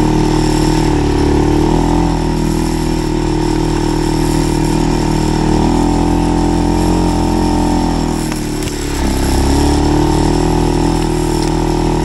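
Segway Snarler AT6L's 570cc single-cylinder ATV engine running at steady revs, easing off about eight seconds in and picking up again.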